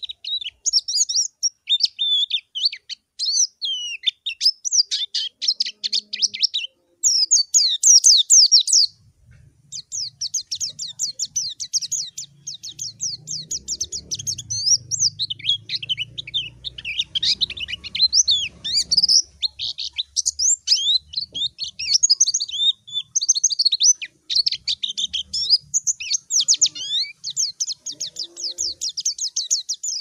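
White-eye (pleci) singing a long, fast, high twittering song, a dense run of quick sweeping chirps and trills with a few short breaks. It is the pleci's challenge song, calling out to a rival.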